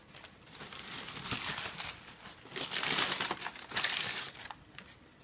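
Packing material crinkling and rustling as a gift item is unwrapped by hand, loudest in the middle stretch and fading near the end.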